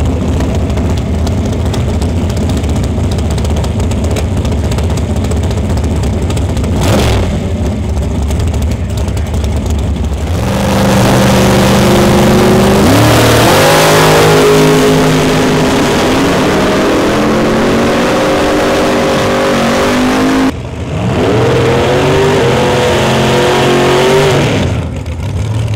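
High-powered drag racing engines running loud, revving and accelerating hard down the strip, in several separate runs. A steady heavy rumble gives way about ten seconds in to engine notes climbing in pitch as cars pull away, and after another sudden change near twenty seconds a second car revs up the same way.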